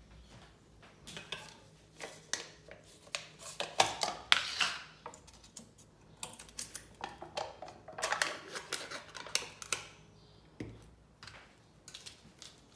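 Irregular clicks, taps and light knocks of small hard objects being handled, in quick clusters with short pauses between.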